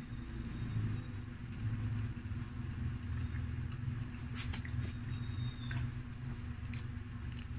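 Chewing and eating pizza close to the microphone, over a steady low hum. A few light crackles, the loudest about halfway through, as a slice is lifted from the paper-lined box.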